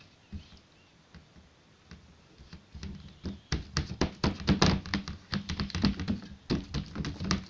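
Oiled hands patting and pressing a sheet of dough flat in a round metal baking tray: a few soft taps at first, then from about three seconds in a quick, uneven run of slaps and taps.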